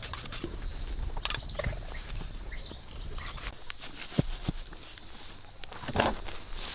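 Scattered light taps and knocks, with a louder knock about six seconds in, over a steady high hum.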